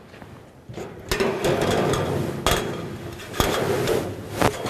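Steel rule, scriber and sheet-metal strip knocking and scraping on a metal-covered workbench while a line is marked out: several sharp knocks about a second apart, with scraping between them.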